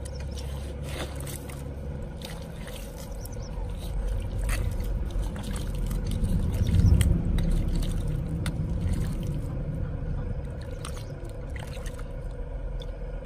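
A stick digging and scraping into a waterlogged mud hole, with wet squelching and trickling water and many short gritty scrapes. A low rumble swells about seven seconds in.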